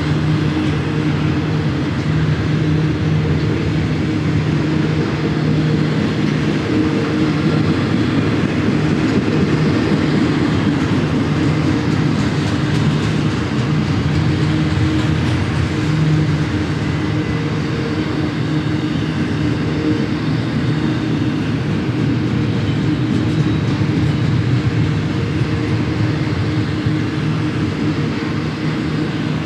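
Double-stack container freight train's well cars rolling past on the rails: a steady rumble with a low, even hum.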